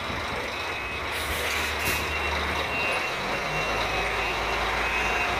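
Heavy truck engine running slowly while maneuvering, with a reversing beeper sounding about once a second. Two short hisses of air come about one and two seconds in.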